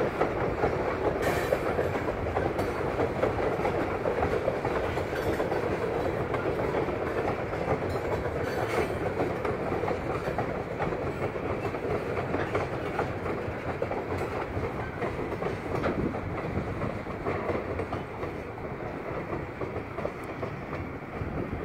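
Covered hopper cars of a freight train rolling across a wooden trestle bridge: a steady rumble and clatter of steel wheels on rail, slowly fading toward the end.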